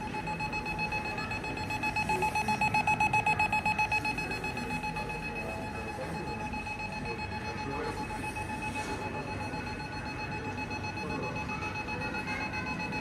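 Electronic alarm beeping rapidly and steadily, about four short beeps a second on one high tone, somewhat louder about two to four seconds in.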